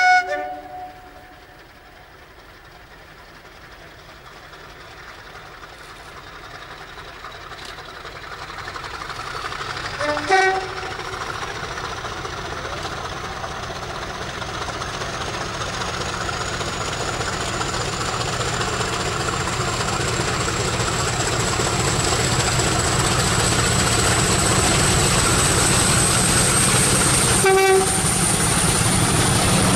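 A Class 50 diesel-electric locomotive (English Electric 16-cylinder engine) approaching at the head of a passenger train, growing steadily louder, with a high whine that climbs slowly in pitch. It sounds its horn about ten seconds in and gives a short blast near the end, with the tail of another horn blast right at the start.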